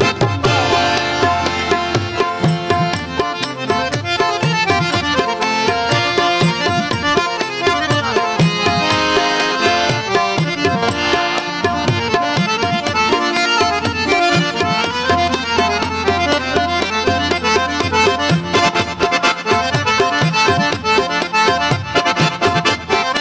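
Instrumental passage of Indian devotional folk music: a harmonium plays the melody in held reedy notes over a fast tabla rhythm, with no singing.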